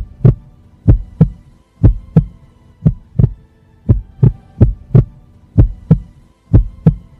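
Heartbeat sound effect: pairs of deep thumps in a steady lub-dub rhythm, about one pair a second, over a faint low hum.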